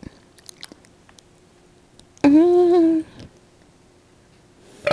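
A single loud voiced sound from a person, about three-quarters of a second long and held at one steady pitch, a little over two seconds in, amid faint clicks.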